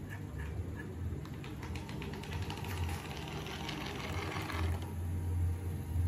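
Small electric motor of a homemade remote-control car whirring with a fast clicking rattle, starting about a second in and stopping shortly before the end, over a steady low hum.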